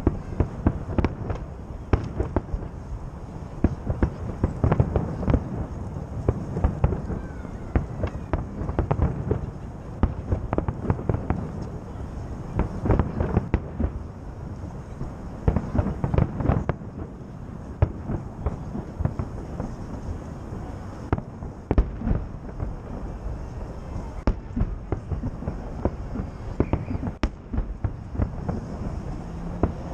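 Fireworks salute bursting continuously: many sharp bangs in quick irregular succession, with a deep rumble between them.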